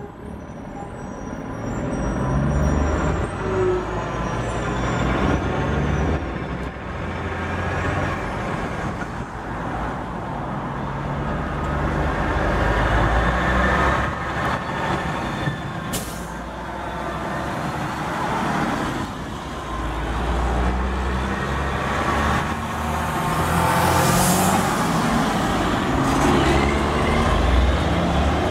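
Diesel semi trucks pulling belly-dump gravel trailers drive past one after another, their engines rumbling. A sharp air-brake hiss comes about halfway through, and a longer one near the end.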